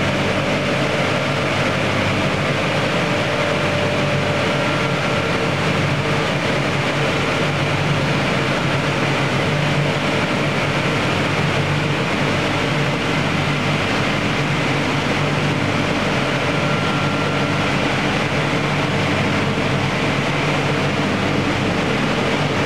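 Automatic battery washing and drying machine running: a loud, steady drone of its electric blower fans and drive motors, with a low hum.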